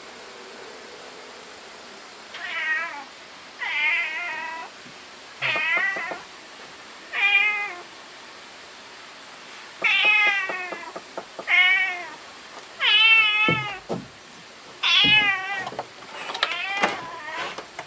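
Orange tabby cat meowing over and over: about nine wavering meows, each under a second long, coming every second or two.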